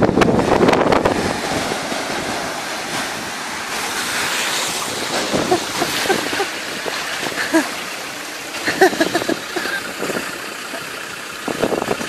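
Water rushing and splashing as a Land Rover Discovery ploughs through a flooded ford, loudest in the first second or so, then settling to a steady wash with wind on the microphone.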